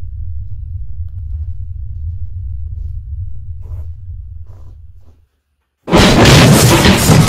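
Low steady rumble that fades away about five seconds in, then a moment of dead silence, broken by a sudden very loud crash lasting over a second: a staged found-footage jump scare in a dark kitchen, the crash going with the kitchen cabinet doors bursting open.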